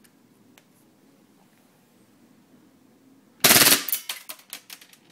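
WE Glock 26 gas blowback airsoft pistol firing about three and a half seconds in: a loud first report, then a quick string of sharper shots for over a second. Before that, only a few faint handling clicks.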